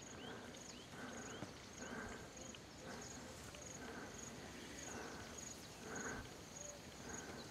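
Faint grassland ambience: a high insect chirp repeating evenly about twice a second, with other short chirps, over soft rustling footsteps through tall grass.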